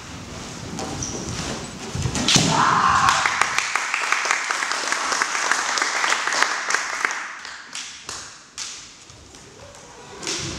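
Spectators clapping in applause, starting with a sharp thud about two seconds in and dying away after several seconds.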